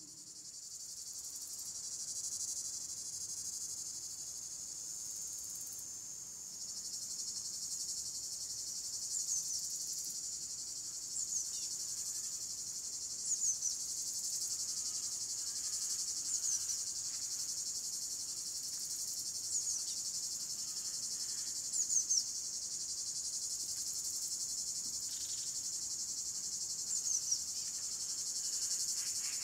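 High, cricket-like chirring: a steady high buzz with short, falling chirps every couple of seconds. It swells a little about six seconds in.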